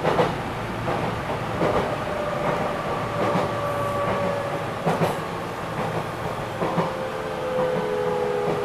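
Enshu Railway 2000-series electric train running, heard from inside the driver's cab: a steady whine that slowly drops in pitch, with the wheels clacking over rail joints about every one and a half seconds.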